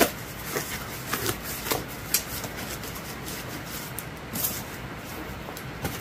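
Hands packing a cardboard shipping box: the cloth wrapping and crumpled paper packing rustle and the cardboard flaps are pressed shut, giving scattered light rustles and taps with a brief louder rustle about four and a half seconds in.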